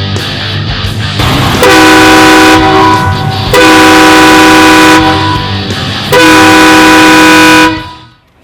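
Newly installed air-powered train horn kit, its trumpets fed by an onboard compressor and tank, sounding three long, very loud blasts of one to one and a half seconds each.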